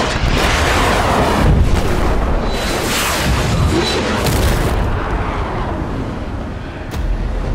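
Action sound effects of missiles streaking through the air and exploding: a dense, continuous rush of booms and whooshes, with a few sweeping whooshes rising and falling in the middle.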